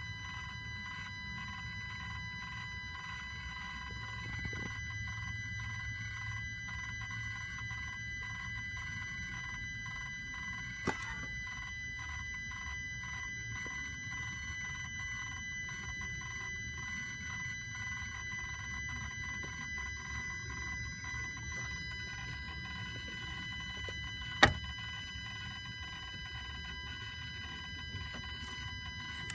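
Electronic module in a 2007 Sprinter turbo diesel whining after the engine is switched off: a steady high-pitched whine of several tones over a low rumble. Two sharp clicks sound, one about 11 seconds in and a louder one about 24 seconds in.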